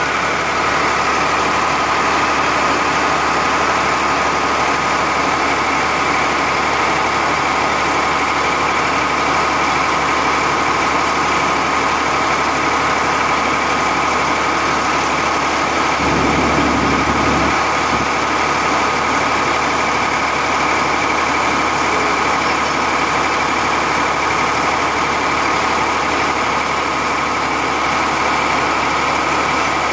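Sonalika DI-50 tractor's diesel engine running steadily while driving a mobile rice mill, with a steady whine from the machinery. A louder low rumble swells briefly about sixteen seconds in.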